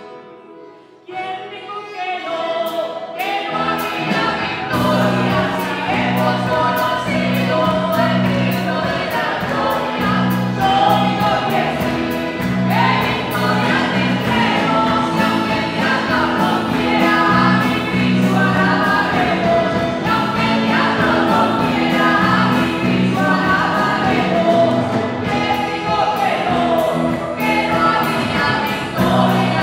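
Live Christian worship song: women singing lead into microphones, backed by accordion, acoustic guitar and a drum kit. It starts from silence and builds up over the first few seconds, with the drums coming in about three seconds in.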